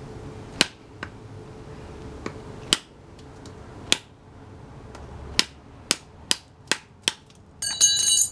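A thin-edged W2 steel knife with a 3.5-inch blade chopping into the hard end of a pork rib bone on a wooden stump: about ten sharp knocks, coming faster in the second half. Near the end comes a short metallic clatter that rings.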